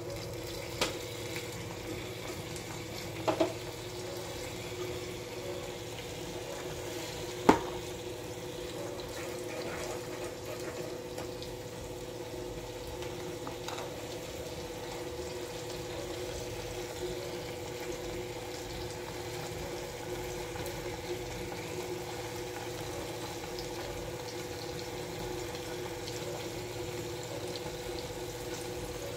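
A thick curry bubbling as it simmers in a steel pan over a gas burner, over a steady hum. A few sharp metal clinks come in the first eight seconds, the loudest about seven and a half seconds in.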